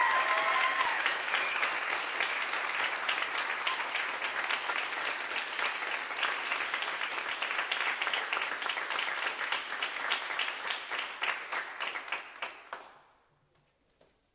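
Audience applauding, thinning to scattered claps and dying away about 13 seconds in.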